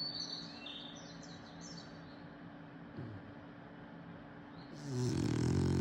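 Bulldog snoring: one long, loud snore swells up about five seconds in, after a few soft parakeet chirps in the first two seconds.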